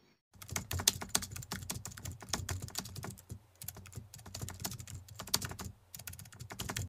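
Computer keyboard typing sound effect: a fast, uneven run of key clicks, with two short pauses about halfway through and near the end.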